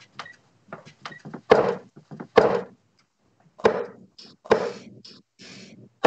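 Darts thudding one after another into a bristle dartboard, several sharp thuds about a second apart, with smaller clicks in between.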